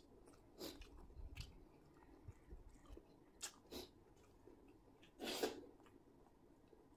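Quiet mouth sounds of chewing a mouthful of chicken biryani: soft smacks and clicks scattered through, with one louder short rush of breath-like noise about five seconds in.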